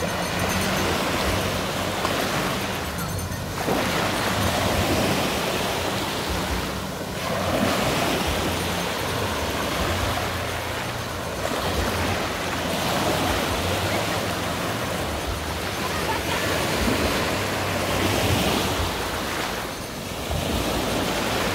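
Sea surf washing in the shallows: a steady rush of water that swells and eases every few seconds.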